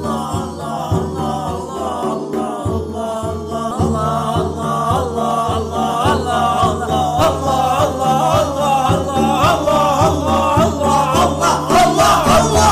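Islamic dhikr: voices chanting the name of God over a steady low drone and pulse, with a wavering, ornamented sung melody above. It grows louder over the last few seconds.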